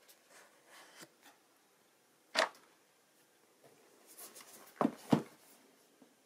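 Cardboard phone packaging handled up close: light rustles and one louder short scrape of card as the paper sleeve comes off the box, then two sharp knocks about a fifth of a second apart near the end as the box is set down flat on the table.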